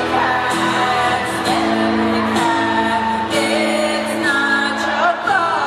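Live acoustic music: two acoustic guitars playing with singing.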